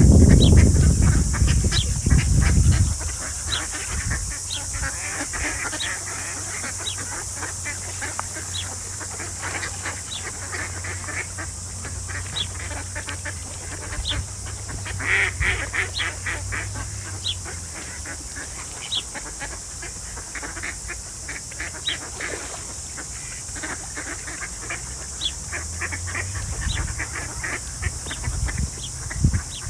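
A flock of mallard ducks quacking in short calls that come in clusters, over a steady high-pitched hiss. Wind rumbles on the microphone at the start and again near the end.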